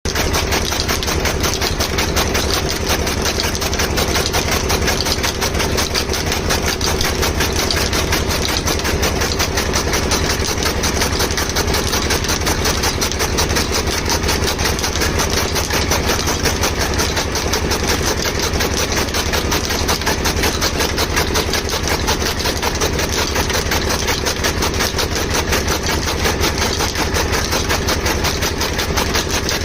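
Chaff cutter machine running steadily while chopping dry fodder, a continuous mechanical clatter with a fast, even rhythm over a low hum.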